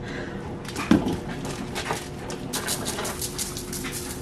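Seasoning shaker shaken over a rack of ribs in quick strokes, rub rattling out with a rapid crisp patter. One loud thump about a second in.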